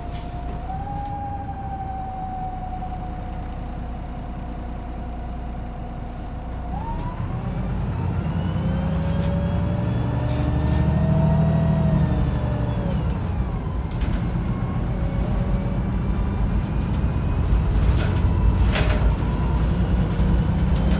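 Wright Pulsar 2 single-deck bus heard from inside, running with a drivetrain whine that slowly falls in pitch. About seven seconds in the engine pulls harder and gets louder, and the whines rise with speed before dropping back at a gear change. A few sharp clicks or rattles come near the end.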